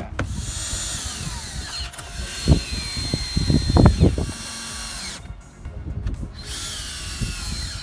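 DeWalt 20V cordless drill driving the door-panel screws back in. The motor whine runs in two spells, holding a steady high pitch mid-way and dropping in pitch each time it slows, with a brief pause near the middle. A few deep knocks around the middle are the loudest sounds.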